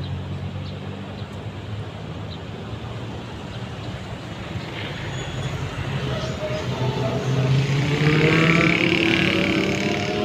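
Diesel locomotive of a passenger train approaching, its engine sound growing louder and rising in pitch from about halfway through, over a steady hum of road traffic.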